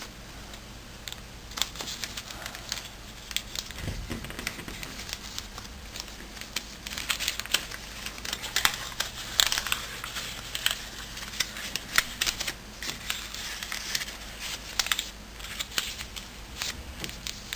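Sheet of origami paper being folded and creased by hand: irregular rustling and crinkling with short sharp crackles throughout.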